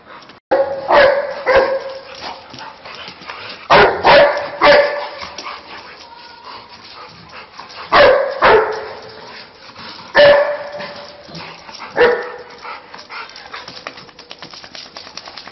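A dog barking in short groups of one to three loud barks, a few seconds apart.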